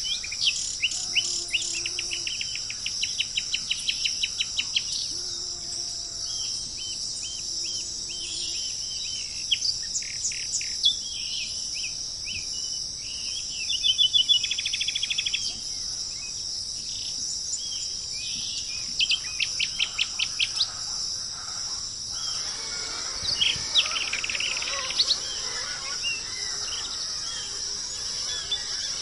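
Songbirds calling in repeated series of rapid chirps and trills, some fast and some slower, over a steady high-pitched background hiss.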